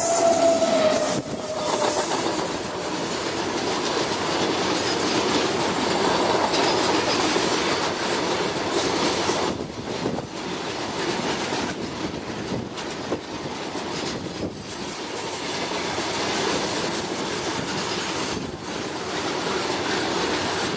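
A WAG9 electric locomotive passes close with a long container freight train. A steady tone drops in pitch as the locomotive goes by, about a second in, and fades out. Then the loaded container wagons roll past with continuous, even wheel-on-rail noise that briefly dips a few times.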